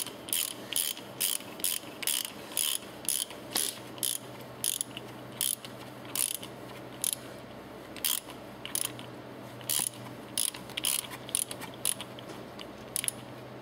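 Ratcheting spanner clicking in short bursts, about two a second, as it tightens a suction valve post in a reciprocating pump's head; the clicks come more sparsely after about seven seconds.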